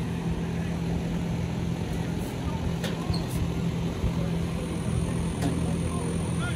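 A steady low mechanical hum from a running motor, holding one pitch throughout.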